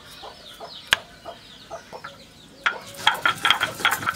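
Cumin seeds being ground into paste on a flat stone grinder: rhythmic scraping strokes, several a second, that start a little under three seconds in. Before that there are faint bird calls and a single sharp knock about a second in.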